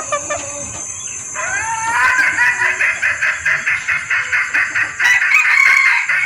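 Female junglefowl calling to attract a male. A few rising notes lead into a rapid run of clucks, about five a second, ending in a longer drawn-out note.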